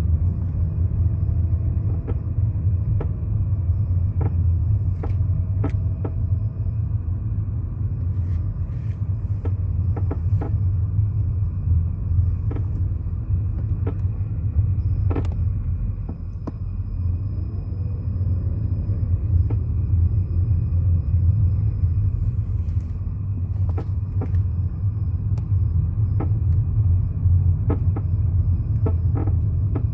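A BMW creaking: short creaks and clicks at irregular intervals, heard over the car's steady low rumble.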